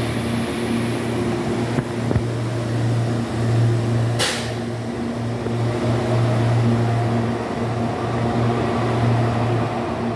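CPTM series 7000 electric train pulling out, with a steady electric hum from its traction and rooftop air-conditioning equipment and a faint whine that rises as it gathers speed. A short hiss about four seconds in.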